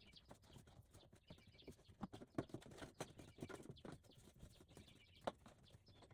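Faint, irregular knocking, tapping and rattling of hand work as a camper panel or its wiring is worked loose, with a couple of sharper knocks, a little after two seconds and again a little after five seconds.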